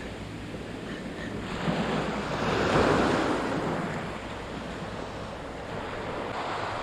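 Ocean surf washing onto the beach, one wave swelling to its loudest about three seconds in and then easing off, with wind rumbling on the microphone.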